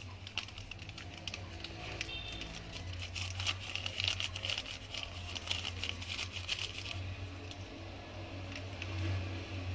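Rapid soft clicks and crackles from hands working a butter-and-egg dough into flour while a paper sachet of baking powder is shaken out over it. The clicks are thickest in the middle of the clip, over a steady low hum.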